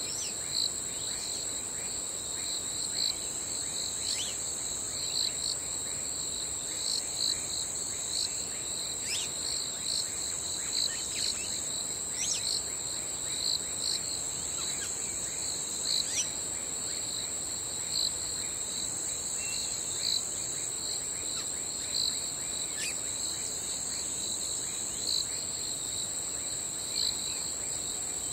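Crickets trilling in a steady, high, continuous chorus, with a lower chirp repeating about once a second. Short falling bird calls are scattered throughout.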